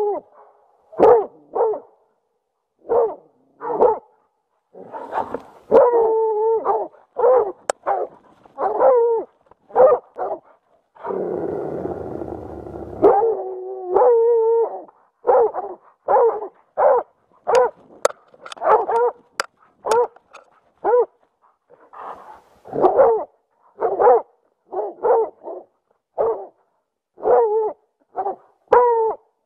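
Plott hound baying at a bear, close up: short loud barks repeated about once or twice a second. About eleven seconds in, a two-second stretch of rough noise breaks in.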